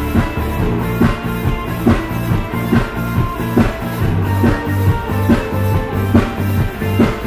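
Rock band playing live: a drum kit keeps a steady beat of about two hits a second under bass and guitars.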